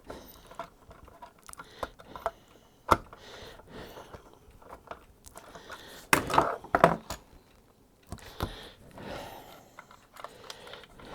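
Light clicks and small metallic rattles of hand work with wires, ferrules and a screwdriver at a screw-clamp terminal block, with one sharper click about three seconds in and a louder flurry of clicks around six to seven seconds.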